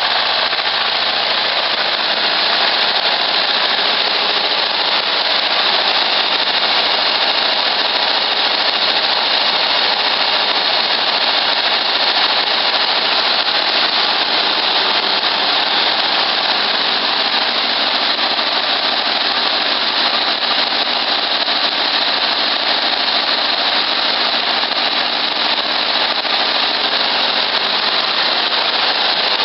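Volkswagen Beetle's air-cooled flat-four engine running loud and steady, roaring hard, with no change in speed throughout.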